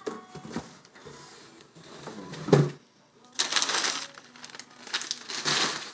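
Paper and plastic packing material rustling and crinkling in bursts as paper-wrapped packages are handled, with a short vocal sound about halfway through.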